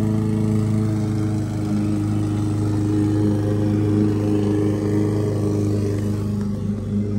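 An engine idling steadily: a constant low hum made of a few fixed tones that holds at one pitch throughout.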